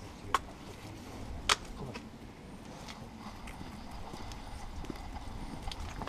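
Movement noise from an action camera strapped to a dog's back as the dog moves about: rubbing and knocking of the harness-mounted camera, with two sharp clicks, a small one near the start and a louder one about a second and a half in.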